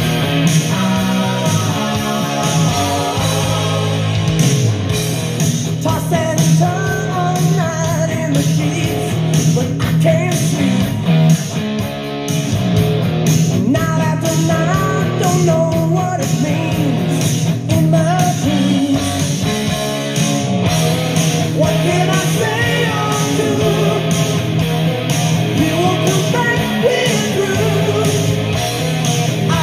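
A rock song with singing and guitar playing loudly through a homemade Fat 50 ammo-can Bluetooth speaker fitted with marine speakers, with a strong, steady bass.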